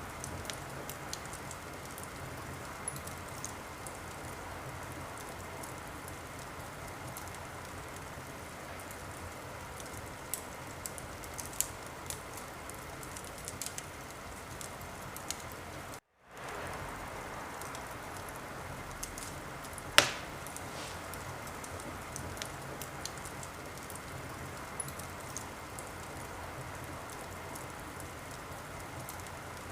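Wood fire burning in a fireplace: a steady hiss with scattered sharp crackles and pops, and one loud pop about two-thirds of the way through. The sound cuts out for a moment just past the middle and fades back in.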